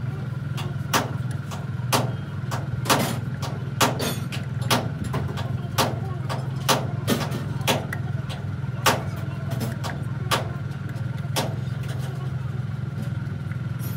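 Socket wrench on a long extension tightening the bolts of a Mercedes truck's clutch pressure plate: a string of sharp metal clicks and clinks, irregular, one or two a second, thinning out after about nine seconds. A steady low hum runs underneath.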